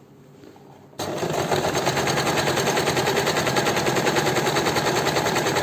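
Usha Janome Dream Stitch electric sewing machine starting up about a second in and running fast, its needle mechanism clattering in a rapid, even rhythm as it sews the J decorative stitch pattern.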